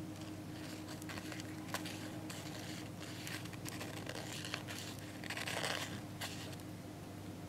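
Irregular faint scratchy rasping and crinkling from a mating pair of Japanese rhinoceros beetles (Trypoxylus dichotomus) on paper, the loudest burst a little over halfway through, over a steady low hum. During mating the male makes a weak squeaky chirp by rubbing his abdomen.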